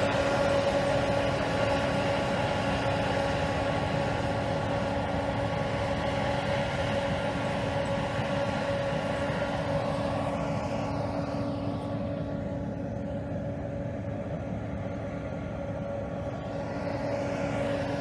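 HTR265 rotary snowplow running, its engine and snow-throwing blower making a steady drone with a humming tone. It grows a little quieter and duller from about halfway through.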